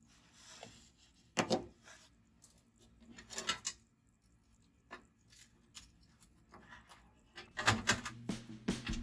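A few scattered short knocks and rustles of handling, with a louder cluster about one and a half and three and a half seconds in. Music with a beat starts near the end.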